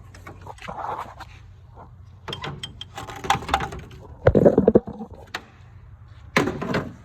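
Metal hand tools being handled in a tool cart drawer: scattered clicks, clinks and knocks, with a loud quick clatter about four and a half seconds in and another near the end.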